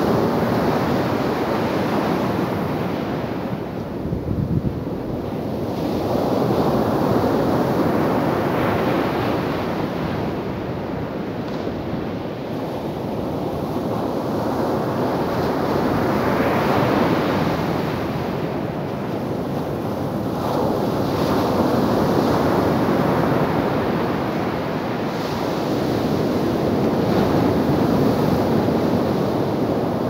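Sea surf breaking on a sandy beach: waves crash and wash up the shore, the sound swelling and easing every several seconds.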